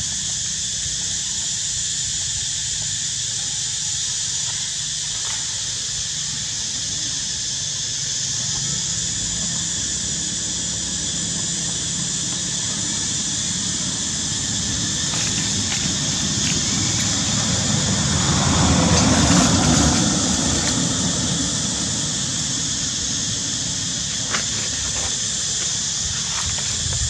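Steady, high-pitched outdoor insect drone that holds the same pitch throughout. A lower rushing noise swells and fades around eighteen to twenty seconds in.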